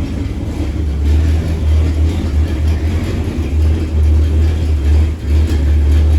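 AMC 287 V8 exhaust with a single Super 44 muffler, the engine running steadily with an uneven low rumble.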